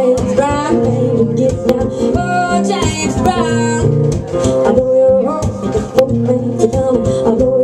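A woman singing live while strumming an acoustic guitar in a steady rhythm, with a long, wavering held note about two seconds in.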